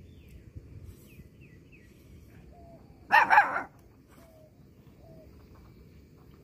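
A puppy barks once, a short loud yap about three seconds in. Faint bird chirps in the background.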